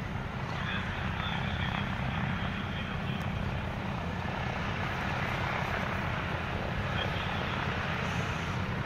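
Lockheed C-130H Hercules flying low on approach, its four Allison T56 turboprop engines and propellers giving a steady, deep drone.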